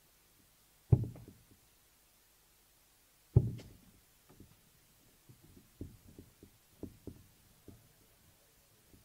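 Steel-tip darts striking a Winmau Blade 6 bristle dartboard, two sharp thuds about a second in and about three and a half seconds in. They are followed by a run of quieter knocks and clicks as the darts are pulled out of the board.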